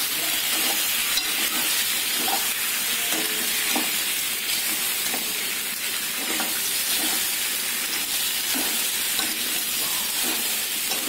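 Macaroni and tomato-onion masala sizzling steadily in a metal pan while being stirred with a metal ladle, with faint scrapes and knocks of the ladle against the pan now and then.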